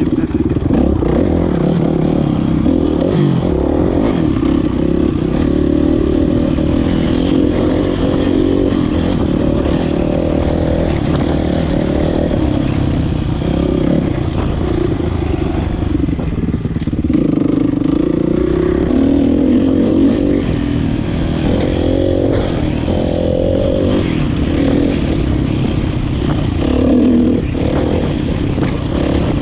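2018 Kawasaki KX450F's single-cylinder four-stroke engine running under load, its pitch rising and falling repeatedly with the throttle.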